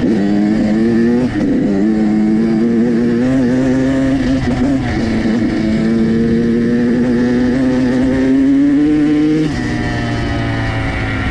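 Dirt bike engine running at steady part throttle, its pitch wavering a little up and down, then easing off with a sudden drop in pitch about nine and a half seconds in.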